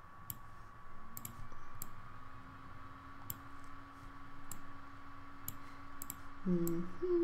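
Computer mouse clicking about ten times at an irregular pace while colours are picked in a painting program. Near the end comes a short two-note hum from a person's voice, louder than the clicks.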